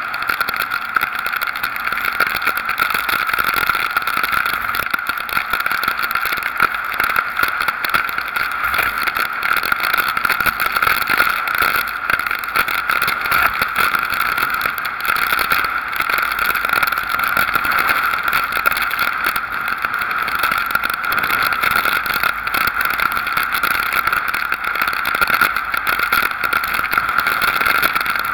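Storm wind and rain rushing over a camera mounted outside a moving pickup truck in a hurricane: a loud, steady, unbroken hiss with no engine note standing out.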